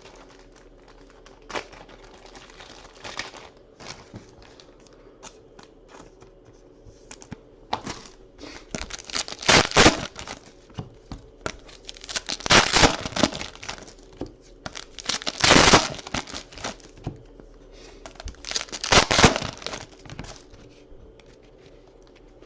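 Panini Prizm basketball card packs being torn open, the wrappers crinkling, with four loud tearing rips spaced a few seconds apart in the second half amid lighter rustling.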